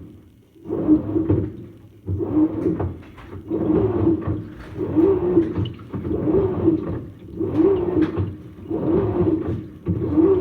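Samsung washing machine washing a load in deep-filled water: the wash motor hums and the water sloshes in even strokes, about one every second and a quarter.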